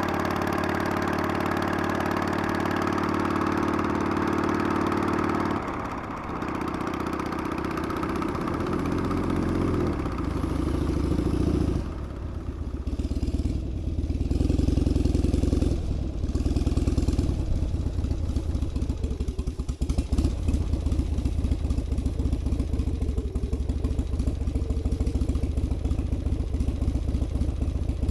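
Harley-Davidson Sportster's air-cooled V-twin engine running steadily, then changing pitch several times as the revs rise and fall. It settles into a low, uneven pulsing rumble for the last ten seconds or so.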